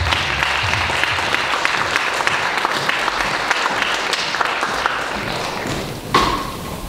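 Audience applauding, a dense run of hand claps that dies away about six seconds in.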